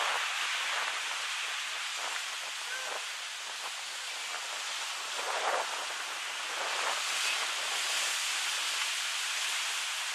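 Small waves breaking and washing up a sandy beach: a steady hiss of surf.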